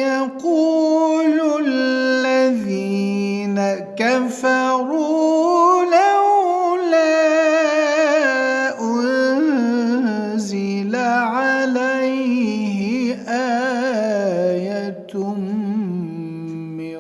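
A male voice chanting Quran recitation in a melodic tajweed style: long, ornamented phrases with wavering, gliding pitch, broken by short pauses about four, nine and fifteen seconds in.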